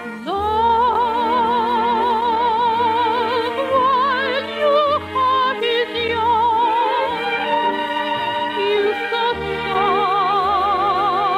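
A soprano singing held, wide-vibrato notes over a sustained orchestral accompaniment, entering with an upward swoop just after the start; an operetta song as broadcast on early-1950s radio.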